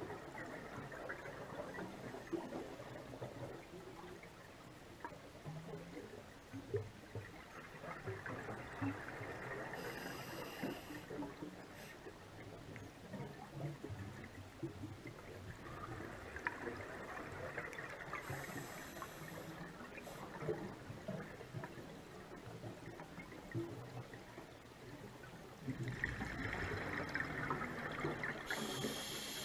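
Underwater ambience heard through a GoPro's waterproof housing: faint, muffled water noise with scattered small clicks and crackles. Brief high-pitched whines come about ten seconds in, again around eighteen seconds, and near the end, where the noise grows louder.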